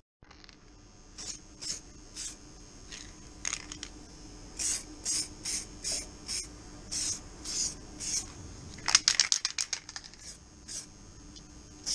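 Aerosol paint can sprayed in short bursts of hiss, about fifteen of them, with a quick run of rattling just after the middle.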